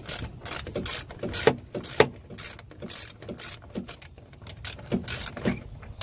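Hand socket ratchet clicking as it turns a bolt, quick at first and thinning out after about two seconds, with two sharper metal clanks about a second and a half and two seconds in.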